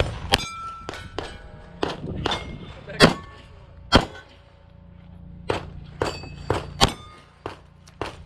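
A string of about a dozen pistol shots fired at steel targets, the plates ringing with a metallic clang after hits. The shots come in quick runs, with a pause of about a second and a half midway.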